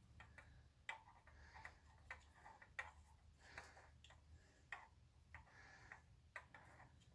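Faint, irregular metallic clicks and taps of hand tools working a threaded fitting, a dozen or so spread unevenly, over a low steady hum.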